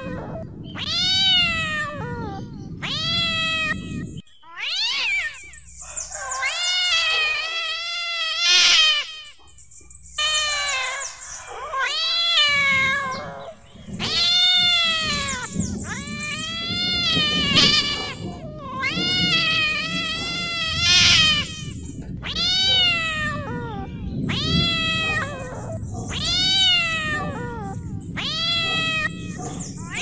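Angry cats meowing and yowling loudly, one drawn-out, arching call after another with only short gaps, sometimes two calls overlapping. A low background rumble runs under most of it.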